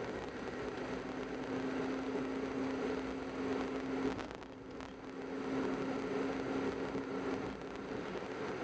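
Car driving on a country road, heard from inside the car: steady engine and tyre noise with a constant drone, easing off briefly about halfway through.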